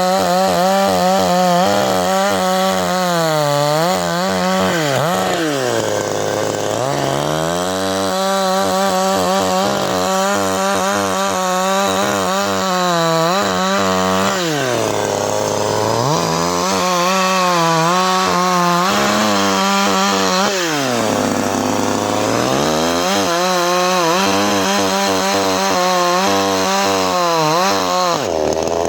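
CanFly 54.6 cc two-stroke chainsaw running at high revs, its pitch wavering, then dropping to idle three times and revving back up each time.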